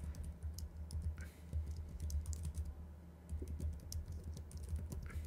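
Typing on a computer keyboard: quick, irregular key clicks over a steady low hum.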